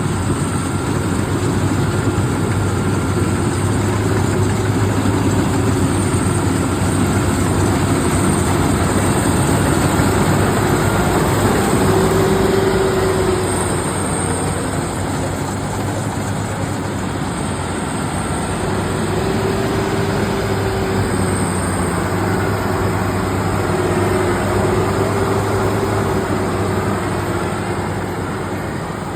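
Harvester engine running steadily with a low hum, its pitch wavering slightly as it works.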